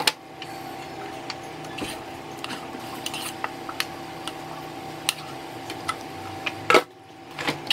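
A wooden spoon scraping thick, sticky pudding out of a metal pot into a disposable aluminium foil tray: scattered light scrapes and clicks, with a louder clatter near the end. A faint steady hum runs underneath.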